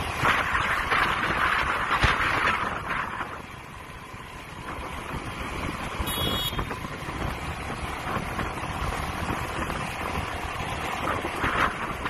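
Wind buffeting the microphone of a motorbike in motion, with road and traffic noise beneath. The rush surges in gusts, eases around four seconds in and picks up again near the end. A brief high beep sounds about six seconds in.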